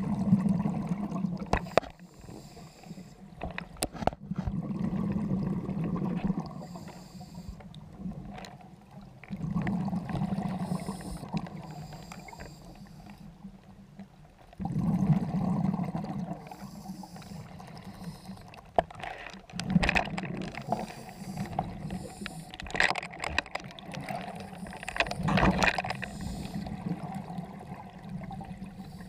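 Scuba diver breathing through an open-circuit regulator underwater: exhaled bubbles rumble out in repeated bursts a few seconds apart, with quieter gaps between breaths.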